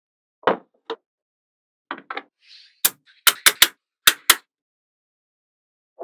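Small magnetic balls clicking and snapping together: about a dozen sharp clicks in irregular bunches, thickest between about three and four and a half seconds in, with a short soft hiss just before that run.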